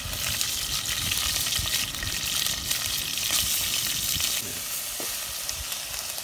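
Pieces of wild turkey sizzling as they fry in a stainless steel pot over a campfire, with scattered small crackles. The sizzle eases a little about four seconds in.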